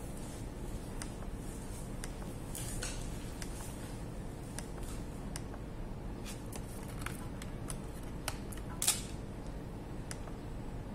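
Scattered light clicks and taps at irregular intervals, with one louder click about nine seconds in, over a steady low hum.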